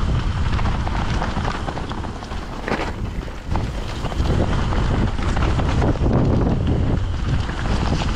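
Mountain bike riding down a rough trail: tyres rolling over dirt and stone with many small knocks and rattles from the bike, under heavy wind buffeting on the microphone.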